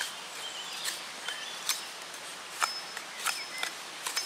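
Ontario Old Hickory knife's thin carbon-steel blade taking shavings off a wooden stick in pull cuts drawn toward the body, each stroke a brief sharp scrape, about five of them. Birds chirp with short thin notes and small gliding whistles in the background.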